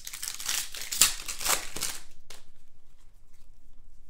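Foil wrapper of a 2019 Prizm football trading-card pack being torn open and crinkled by hand: dense crackling for about two seconds with one sharp snap about a second in, then only faint rustling.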